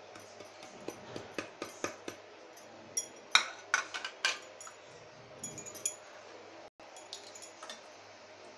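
Spoons and small dishes clinking and tapping as spices are added to chicken being marinated, with scattered sharp clinks and a quick cluster of louder ones around the middle.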